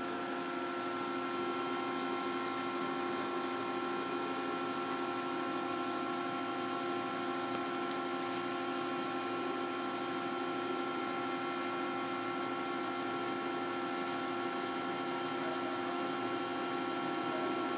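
Coil loading machinery running while a steel coil is moved onto the uncoiler: a steady, even machine hum of several fixed tones, with a few faint clicks.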